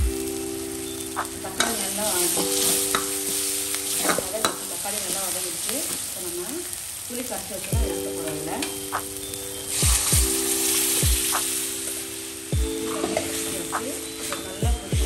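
Onions, tomatoes, green chillies and curry leaves sizzling in oil in a black kadai while a steel ladle stirs and scrapes them, with sharp knocks of the ladle against the pan. About ten seconds in the sizzling surges loudly as liquid goes into the hot pan to make the gravy.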